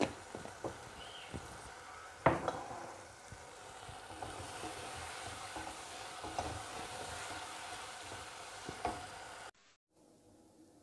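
Chicken pieces sizzling in a spiced sauce in a granite-coated pan while a wooden spoon stirs them, knocking against the pan several times, loudest about two seconds in. Near the end the sizzling cuts off suddenly, leaving a faint hum.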